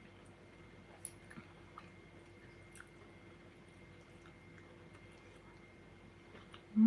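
Faint chewing of a sausage, with a few small clicks in the first few seconds and a low steady hum underneath. A short voiced sound starts loudly right at the end.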